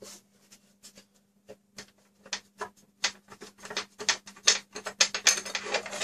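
Gloved hands working at the metal drive cage of a PC case: a run of irregular clicks, taps and rubbing, sparse at first and busier from about two seconds in.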